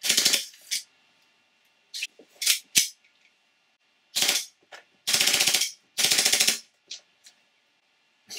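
Stock ASG Glock 18 gas blowback airsoft pistol firing on full auto, with the slide clattering in rapid bursts and a few single shots between them. The two longest bursts, a little over half a second each, come in the second half.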